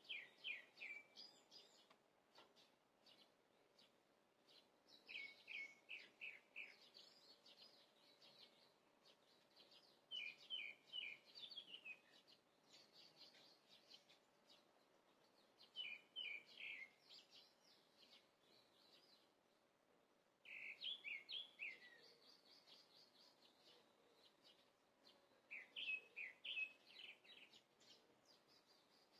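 Faint birdsong: a small bird repeating short phrases of quick chirps about every five seconds.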